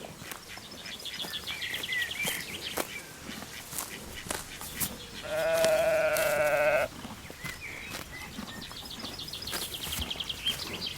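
A sheep bleats once, a wavering, high call lasting about a second and a half, starting about five seconds in. Birds twitter in the background, with rapid trills near the start and near the end.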